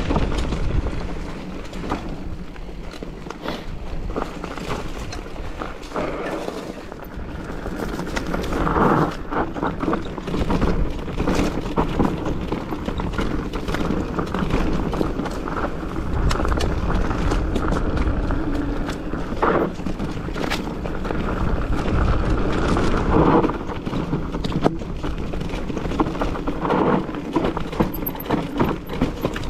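Mountain bike riding over a rough, stony trail: tyres crunching on rock and the bike clattering with many sharp knocks, over a steady rumble of wind on the microphone.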